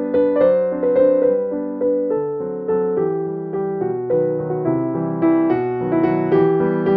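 Background piano music: a melody of struck notes over lower chords.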